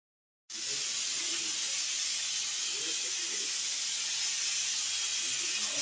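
Stainless-steel pressure cooker whistling: a steady hiss of steam jetting from the weight valve. It starts abruptly about half a second in and holds at an even level. This is the third whistle, the sign that the sambar inside is cooked.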